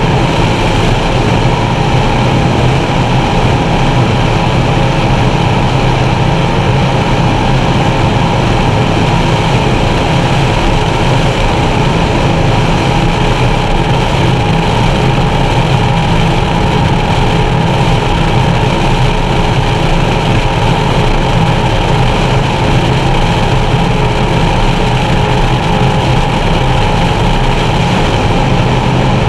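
Engines of a Skater 368 Supercat racing catamaran running steadily at racing speed, heard from inside the cockpit, with a steady rush of wind and water over the hull.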